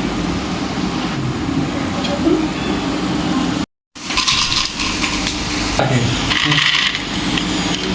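Potato fingers frying in hot oil, a steady sizzle with clinks of a utensil on the pan. The sound cuts out abruptly for a moment a little before the middle, then the sizzle resumes, brighter.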